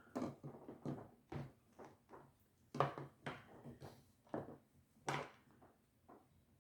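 Irregular small clicks and knocks of a toy's parts and loose gears being handled, about a dozen over a few seconds, the sharpest about three seconds in and again about five seconds in.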